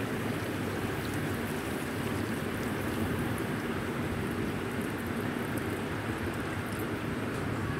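Mutton curry sizzling and bubbling steadily in a steel kadai as water is added to the hot masala.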